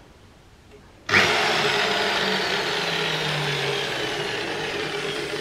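Electric power drill starting about a second in and running continuously, its pitch slowly falling.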